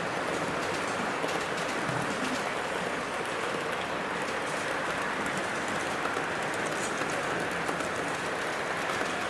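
Model railway freight wagons loaded with logs rolling steadily past on the track: an even, rain-like hiss of many small wheels on rail, with faint fine clicks.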